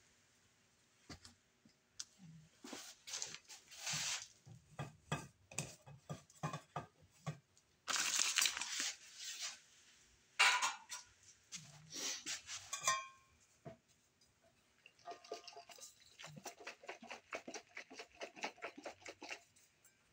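Kitchen handling noises: scattered clicks and clatters with two louder rustling bursts, then a run of quick, even ticking strokes lasting several seconds.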